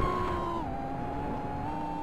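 Micro quadcopter's brushless motors and three-blade props whining, the pitch stepping down and then back up as the throttle changes, over rushing air noise.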